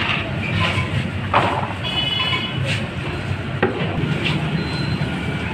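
Steady street background of traffic and vehicle rumble with scattered voices, broken by a couple of sharp knocks and a short high-pitched tone about two seconds in.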